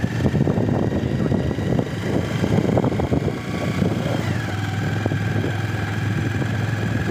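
Motorcycle engine running as the bike rides along, with wind and road noise. The sound is rough and uneven for the first few seconds, then steadier.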